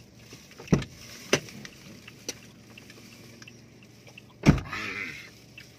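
Handling noise from eating sliced mango out of plastic bags: a few sharp clicks, then a loud knock about four and a half seconds in, followed by a brief plastic rustle.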